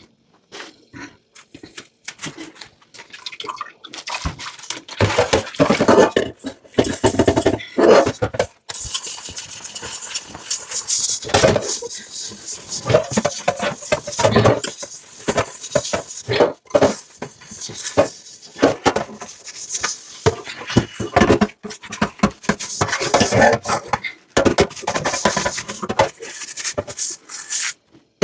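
Dishes being washed by hand in a sink: irregular clinks and clatters of plates and cutlery, with scrubbing and water splashing and running.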